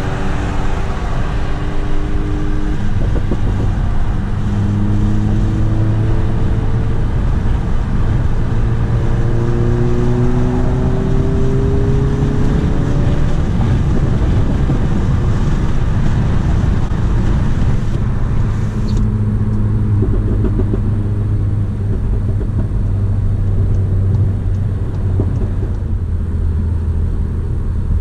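Volkswagen MK7 GTI's turbocharged 2.0-litre four-cylinder with an APR Stage 2 tune and a CTS downpipe, heard from inside the cabin. It pulls up through the gears of its six-speed manual, the pitch climbing and dropping back at each shift, then settles to a steady cruise from about halfway.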